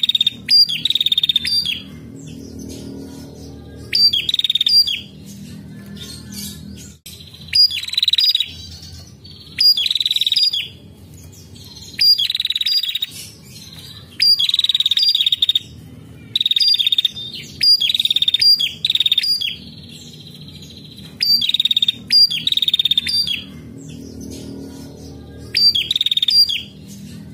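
Female prenjak calling in short, rapid bursts of high, sharp notes, each about a second long, repeated roughly every two seconds.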